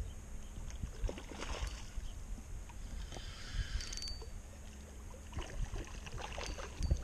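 Wind rumbling on the microphone over sea water sloshing at the shore, with a few small clicks and taps scattered through.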